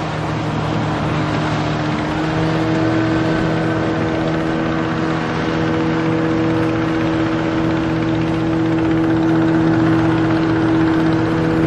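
An engine running steadily at one speed, a constant droning hum with no revving.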